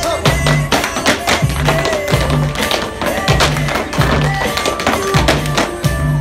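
Two tap dancers' shoes striking plywood boards in fast, dense rhythms over backing music with a repeating bass beat from a small portable speaker.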